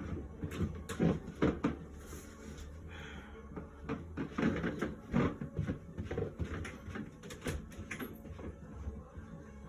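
Irregular knocks, clatter and rustling of things being handled and moved about, loudest around a second in and again about four to five seconds in.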